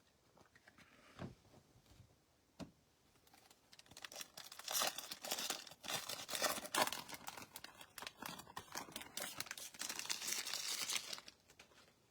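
A few faint clicks, then from about four seconds in, a trading card pack wrapper crinkling and tearing as it is opened, for about seven seconds.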